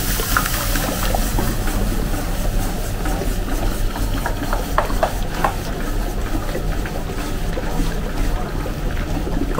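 Electric stirring machine's motor running steadily, its shaft turning saffron sugar syrup in a copper bowl for sohan, with a few short clinks about halfway through.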